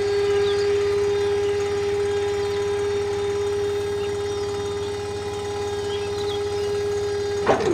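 Small electric motor of a DIY model tractor running with a steady high whine over a low hum, its pitch dropping suddenly near the end.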